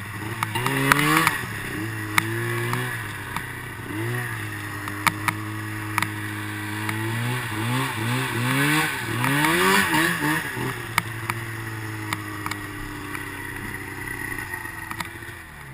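Snowmobile engine idling and being blipped: short revs under a second in and about four seconds in, then a run of quick revs from about seven to ten seconds, each falling back to a steady idle. Sharp clicks are scattered throughout, and the engine note drops away near the end.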